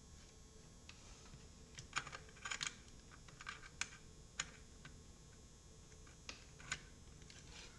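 Faint, irregular light clicks and taps of computer cables and plastic connectors being handled, a few at a time with gaps between.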